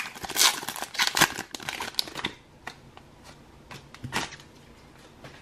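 Foil booster pack wrapper crinkling and tearing as it is pulled open for about two seconds, followed by a few soft clicks of the trading cards being handled.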